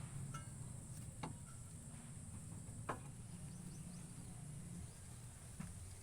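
Three light, sharp knocks spaced a second or two apart over a faint, steady low hum.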